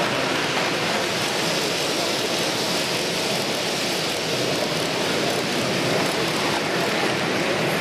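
Steady, even rumble of HO-scale model trains running on the layout's track, blended with the general din of a busy exhibition hall.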